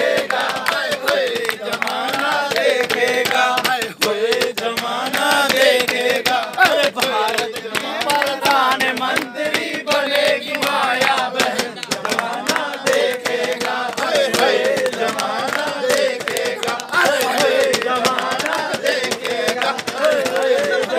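Men singing a Hindi political song to Mayawati in a chant-like style, with hand claps or beats in between.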